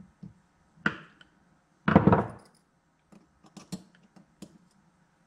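Hand work on a small carburetor on a wooden workbench: a knock about a second in, a louder thud at about two seconds, then light clicks and taps as a screwdriver threads an adjustment screw into the carburetor body.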